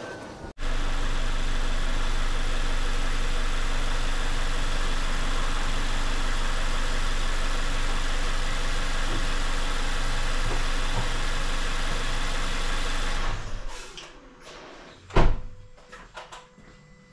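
Mazda3's four-cylinder engine idling steadily after an oil change, then shutting off about thirteen seconds in. A single loud thump follows a couple of seconds later, with a few lighter knocks after it.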